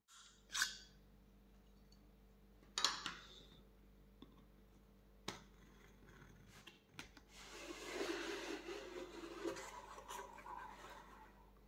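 Cardboard packaging of a tablet handled and opened by hand: a few short sharp rustles, then several seconds of rubbing and sliding.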